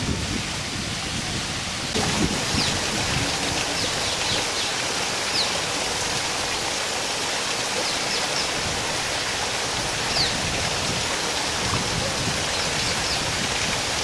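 Small rocky waterfall splashing steadily into a pond, a step louder from about two seconds in, with a few faint high bird chirps now and then.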